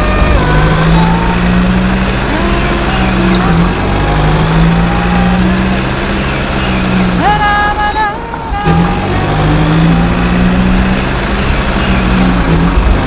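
A truck-like engine drone from RC construction vehicles, rising in pitch, holding and falling again three times, each cycle about three to four seconds, over a steady low hum. Background music with short melodic tones plays over it.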